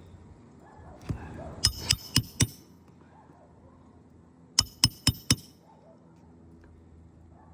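Hammer driving roofing nails to fasten a replacement asphalt shingle: two sets of four quick, ringing metal-on-metal blows, the second set about three seconds after the first.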